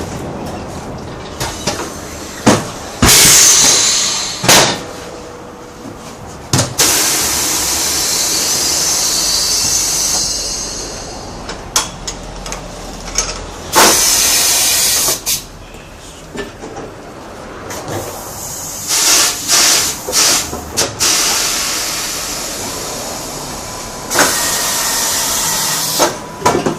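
Compressed air hissing out of pneumatic tire-shop equipment in repeated bursts, one of them several seconds long, with sharp knocks and clicks between them.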